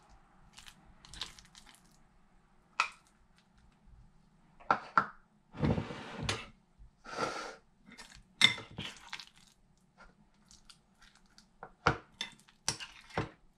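Metal spoon and fork scooping guacamole out of a glass mixing bowl: a run of short scrapes and sharp clinks of metal on glass, the busiest stretch in the middle.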